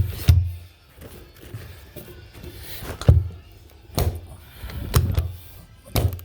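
A series of dull thumps and knocks, two close together at the start and then roughly one a second, from carpet being worked and pressed into place during installation.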